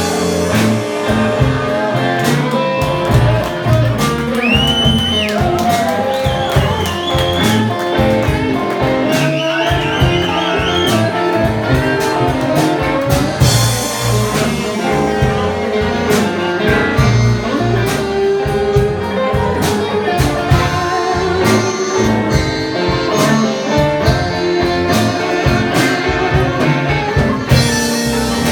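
Live blues band playing an instrumental break: a lead guitar solo with bent, sliding notes over a steady rhythm section with drums.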